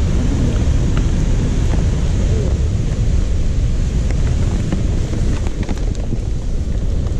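Wind buffeting the microphone, a loud steady low rumble, with a few faint ticks.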